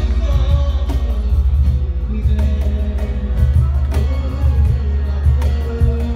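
Live acoustic band playing an instrumental passage through a PA: strummed acoustic guitars, a transverse flute carrying the melody, and a clapbox (cajon) keeping the beat, with a heavy booming low end.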